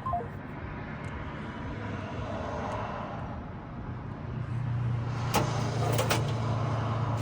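A car's engine running with a steady low drone that grows louder about four seconds in, and two sharp clicks a little under a second apart near the end.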